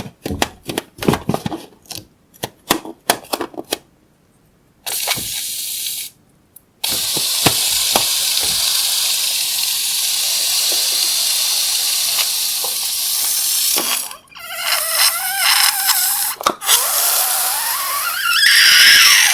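A series of quick clicks, then air hissing steadily out of a balloon for several seconds, turning into a wavering, rising and falling squeal as the stretched neck vibrates.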